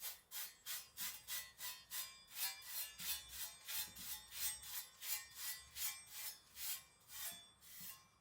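Quick, light back-and-forth strokes of a thin Chinese cleaver's edge on a whetstone, about three raspy strokes a second, to take off the last stubborn burrs.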